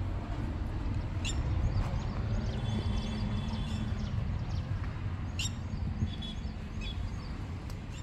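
Birds chirping now and then over a steady low rumble.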